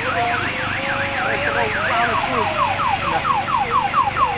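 An electronic siren cycling through its tones: a fast up-and-down warble, about three sweeps a second, that switches about two seconds in to quick falling chirps, about five a second.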